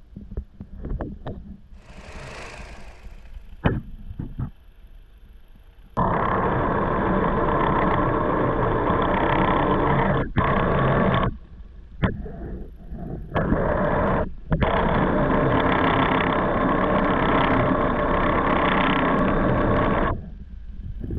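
Toyota Wish engine running with a loud abnormal noise from the engine bay. It starts abruptly about six seconds in, breaks off briefly a few times, and stops near the end. Light clicks come before it.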